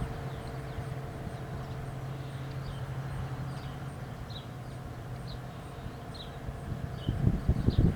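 Tail end of an ACA Penetrator-50 tornado siren's wind-down: a faint, steady low hum as the rotor coasts toward a stop, with short chirps from small birds repeating every half second or so. About seven seconds in, louder low rumbling noise starts.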